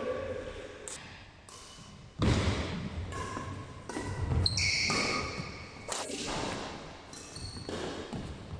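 Badminton rally: rackets strike the shuttlecock in several sharp hits a second or two apart, with players' footfalls thudding on the wooden court and brief shoe squeaks.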